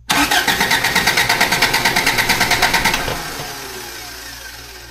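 Toyota pickup engine cranking on its starter without firing, ignition disabled, for a compression test: an even chugging at about seven beats a second, one beat per cylinder compression stroke. Cranking stops about three seconds in and the sound winds down.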